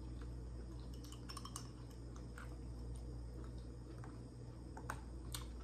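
Faint eating and food-handling sounds: a few scattered light clicks and clinks over a steady low hum.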